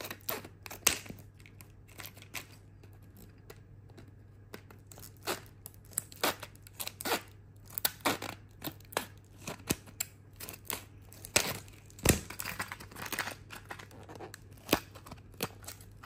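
Scissors snipping through a padlock's stiff plastic blister pack: a run of irregular sharp snips, with one louder snip about twelve seconds in.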